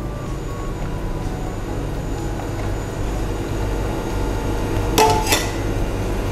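Two quick metallic clinks of a utensil against metal bakeware about five seconds in, with a short ring, over a steady low hum.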